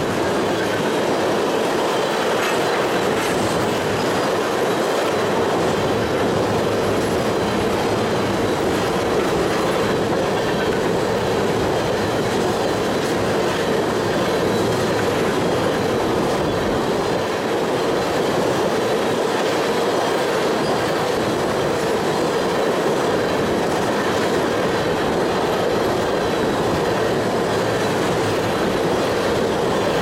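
Empty oil tank cars of a freight train rolling by: a steady, unbroken noise of steel wheels running on the rails, with faint clicks.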